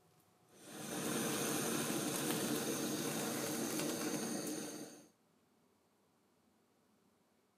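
Sizzling hiss of grilled meat with fine crackle, fading in and cutting off after about four seconds.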